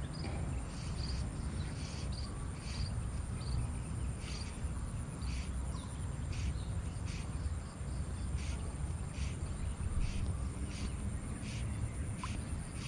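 Outdoor wildlife chorus: short high chirping calls repeating every half second or so, over a thin steady high-pitched drone and a low rumble.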